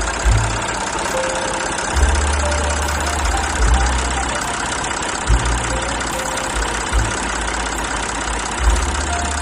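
Tractor engine sound running at idle, its deep rumble cutting in and out every second or two.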